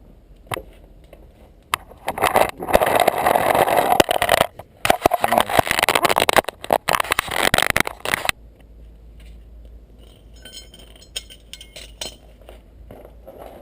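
Loud scraping and clinking of hard parts or tools being handled, broken up and full of clicks, lasting about six seconds from about two seconds in, then fading to scattered light ticks and rustling.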